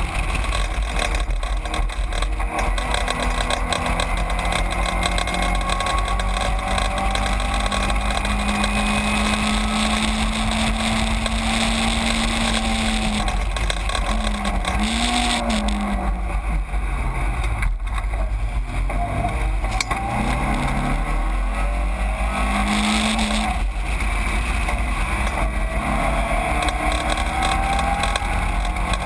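Caterham 7 race car's engine heard from its own open cockpit, held at steady revs for about twelve seconds, then falling and rising in pitch several times in quick steps through the middle as it goes down the gears, before climbing again near the end. A constant rush of wind and road noise runs underneath.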